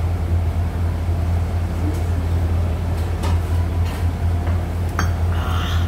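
A steady low hum, with a couple of faint clicks about three and five seconds in.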